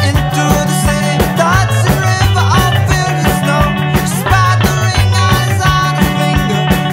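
Rock song with a driving drum beat, bass and electric guitar, played as the video's soundtrack.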